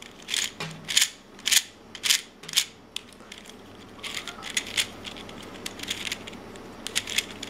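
Freshly lubricated David's Gear Cube, a plastic geared twisty puzzle, being turned by hand, its pieces clicking. There are sharp clicks about twice a second at first, then a faster run of small clicks from about four seconds in.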